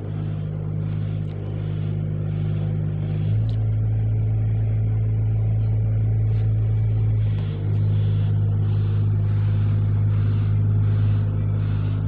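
A steady, loud, low mechanical drone, like a large engine running. Its pitch shifts about three seconds in and again about halfway through, and a faint even pulsing runs over it.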